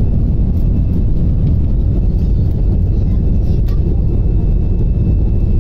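Airbus airliner accelerating down the runway on its takeoff roll, heard from inside the cabin: jet engines at takeoff power and wheels on the runway make a loud, steady low rumble.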